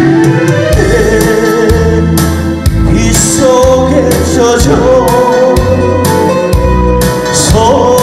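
A male vocalist singing a Korean popular song into a handheld microphone, holding long wavering notes, over instrumental accompaniment with a steady bass beat.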